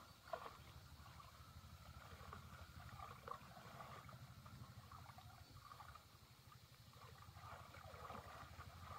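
Faint sloshing and small splashes of pond water over a low, steady rumble.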